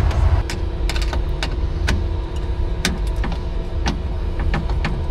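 Scattered sharp clicks and light taps of signal cables and their ties being handled and repositioned inside a metal traffic signal cabinet, at an irregular pace, over a steady low rumble and a faint steady hum.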